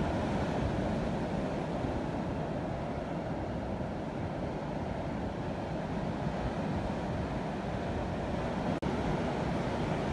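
Sea surf breaking against the rocks at the foot of a cliff, mixed with wind rumbling on the microphone: a steady rush of noise. The sound cuts out for an instant about nine seconds in.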